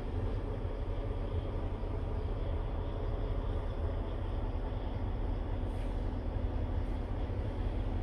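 Scania P truck's diesel engine idling steadily, heard from inside the cab. Two faint light clicks come about six and seven seconds in.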